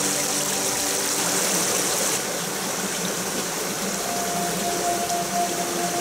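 Shallow stream rushing and splashing over rocks in a steady wash of water noise; the brightest hiss eases about two seconds in as the flow becomes calmer.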